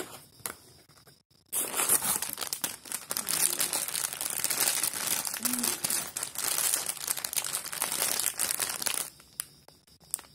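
A clear plastic packet of bolts crinkling and rustling as hands handle it, a dense crackle that starts about a second and a half in after a few faint clicks and stops about a second before the end.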